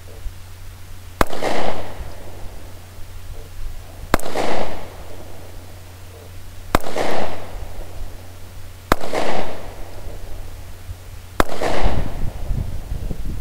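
Five single pistol shots from a Taurus PT 709 Slim 9mm firing steel-case ammunition, spaced about two to three seconds apart, each sharp crack followed by a trailing echo.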